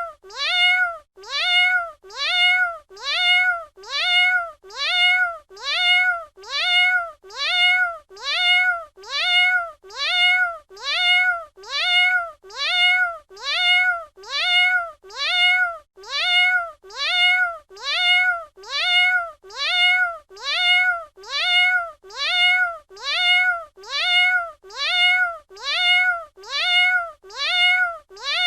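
A domestic cat's short meow, the same call repeated evenly about once a second, each one rising and then falling in pitch.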